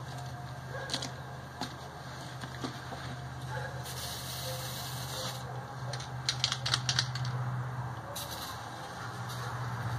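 A 50cc youth ATV's small engine idling steadily with a fast, light ticking, with a short hiss about four seconds in and a cluster of sharp clicks a couple of seconds later.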